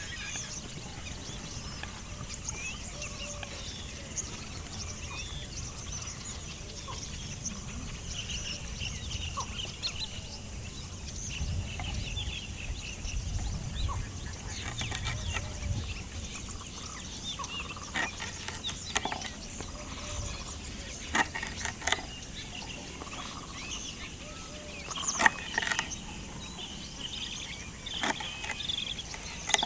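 A knife chopping moringa drumstick pods on a wooden cutting board: a series of sharp chops in the second half. Birds chirp throughout.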